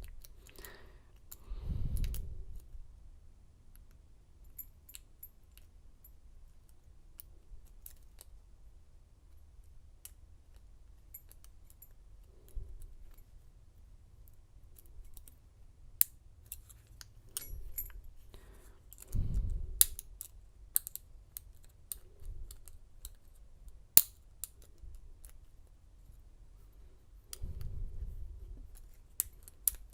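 Thin steel lock pick and tension wrench working the pins inside a Schlage lock cylinder: scattered small metallic ticks and clicks as the pins are lifted. There are a few soft low swells of handling noise.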